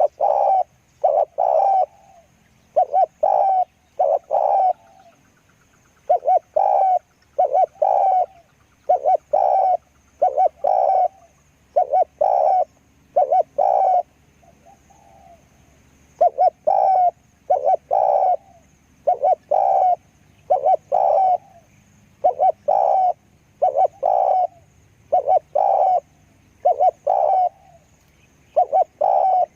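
Spotted dove cooing over and over in short phrases of two or three notes, with a pause of about two seconds midway.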